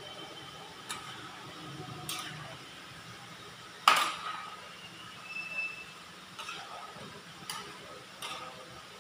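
Metal spatula clinking and scraping against a large aluminium pan while stirring a creamy sauce, about six sharp ringing knocks, the loudest about four seconds in, over a steady background hum.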